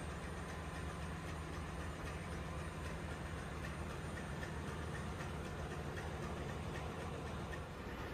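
Steady low drone and hiss of running machinery in a ship's engine room.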